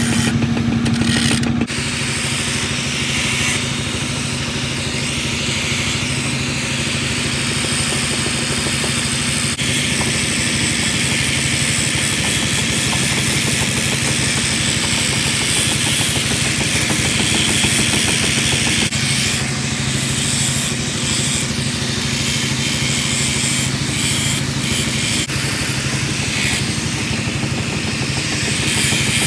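Electric angle grinder running with an abrasive disc grinding a steel knife blade: a steady motor hum under a harsh hiss. The sound shifts abruptly a few times.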